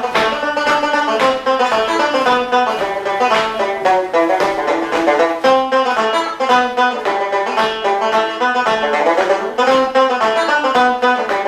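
Background music: a fast plucked-string tune in a bluegrass style, led by a banjo.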